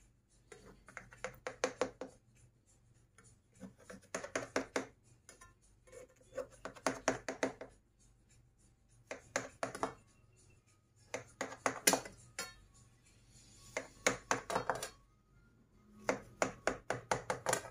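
Knife cutting through a baked cake in its round pan: about seven bursts of quick scraping clicks, each a second or so long, with short pauses between.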